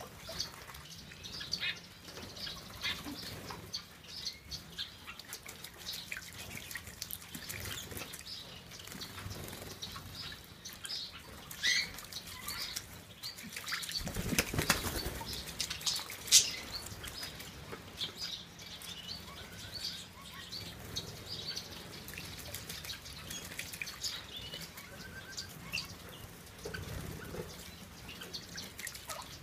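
Small cage birds bathing in a shallow dish of water: fluttering wings and splashing, with many short chirps. A louder burst of wing-flapping and splashing comes about halfway through.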